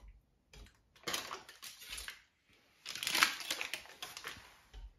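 Cubes of butter being tipped into a pot of miso paste, sugar and sake, in two scraping, squishing passages of about a second each, with a few light knocks.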